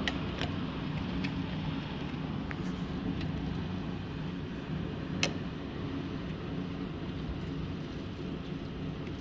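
Steady rush of tornado-force wind and heavy rain heard through a window pane, with a few sharp ticks against the glass, the loudest about five seconds in.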